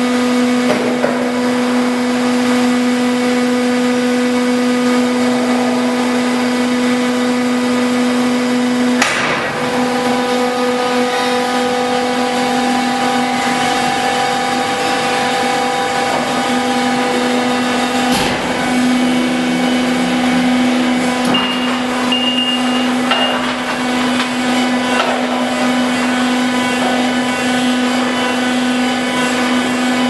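Electric drives of a drop-bottom heat-treatment furnace running as the bottom door opens and the load carrier lowers: a steady mechanical hum. About 9 and 18 seconds in, a sharp click comes as the hum breaks off and resumes at a shifted tone, as motors switch.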